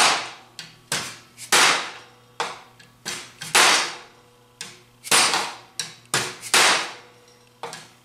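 Hand hammer striking a sheet-steel wheel-arch patch panel clamped over a wood-and-steel hammer form: about a dozen sharp, irregular blows, each with a short metallic ring. The blows are hammer-forming the thin bead detail along the wheel arch.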